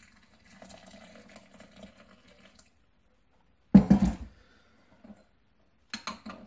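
Hot water poured from a stainless steel vacuum flask into a porcelain gaiwan over the tea leaves, a faint steady pour lasting a couple of seconds. After a pause comes one loud thump as the flask is set down, and near the end light clicks as the porcelain lid goes onto the gaiwan.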